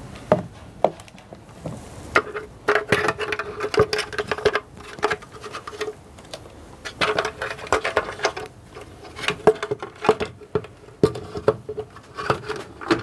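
Hard plastic vacuum-cleaner housing parts knocking, clicking and scraping against each other as they are handled and fitted back together. The taps come irregularly and often, some of them sharper and louder.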